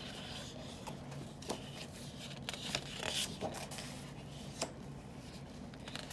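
Sheets of scrapbook paper rustling and sliding as they are handled and turned over, with a few light clicks and taps.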